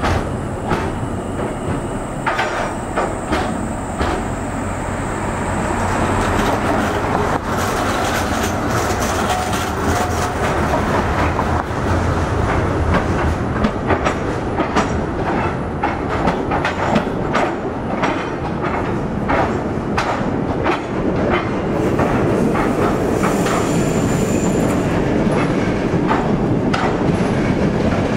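Škoda 15T low-floor trams rolling past over a temporary surface-laid "Californian" crossover, the wheels clattering over its switch and rail joints with many sharp clicks. A brief high squeal comes late on.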